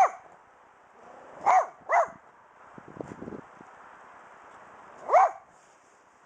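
Small terrier-mix dog barking in short single barks: one at the start, two in quick succession about a second and a half in, and one more near the end.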